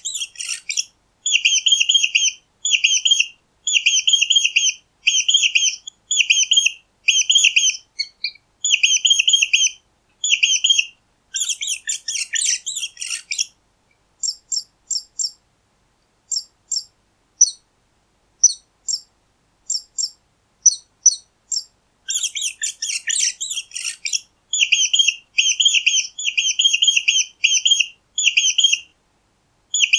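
Mice squeaking: quick runs of short, high-pitched squeaks, coming about once a second with brief silences between. Twice the squeaks thicken into a dense, jumbled flurry, and in between they thin out to scattered single squeaks.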